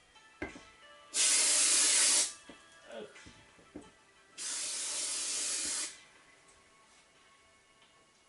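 Two long, even hisses of pressurised spray, the first about a second long and the second about a second and a half, with a short pause between them.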